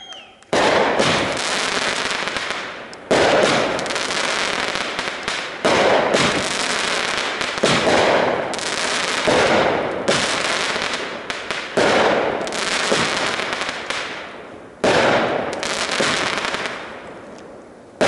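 Consumer firework cake firing aerial shots, about seven sharp reports two to three seconds apart. Each report is followed by a noisy crackling spread that fades before the next shot.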